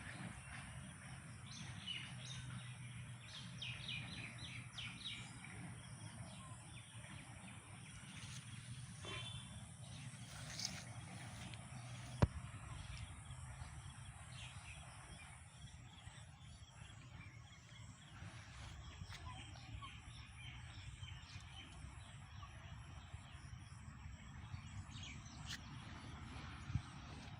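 Quiet steady background noise with a low hum, with faint scattered bird chirps in the first few seconds and again around ten seconds in, and a single sharp click about twelve seconds in.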